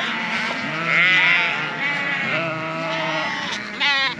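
Sheep and lambs bleating, several wavering calls overlapping, with a sharper, higher call just before the end.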